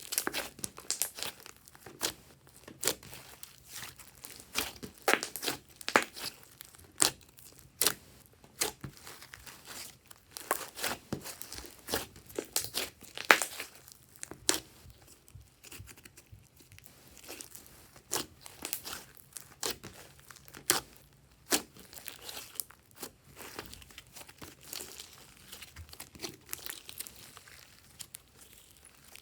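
Glossy slime being squished and stretched by hand, giving sharp, irregular sticky clicks and pops.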